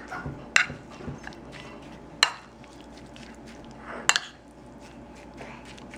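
Metal spoon clinking and scraping against a ceramic bowl while stirring sliced raw chicken in its marinade, with three sharper clinks among softer ticks.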